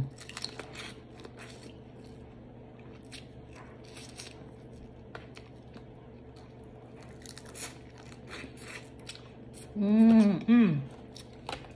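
Close-up eating sounds of a woman chewing air-fried crab leg meat: soft chewing and mouth smacks with scattered clicks and crackles as pieces are picked from a foil-lined dish. About ten seconds in, she gives a loud, drawn-out vocal exclamation in two parts, each rising then falling in pitch.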